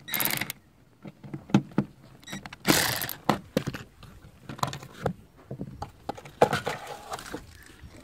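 Seat belt metal hardware and the loosened anchor bolt clinking and rattling as the belt is pulled free, with many sharp clicks and knocks. There are two short rasping bursts, one at the start and one about three seconds in.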